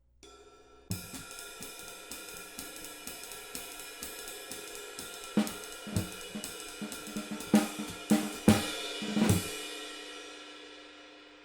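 Drum kit playing an up-tempo jazz swing ride pattern on a cymbal with no rivets, clean and clear with no sizzle, with hi-hat and snare and bass drum accents. A last hit is left to ring and fade out.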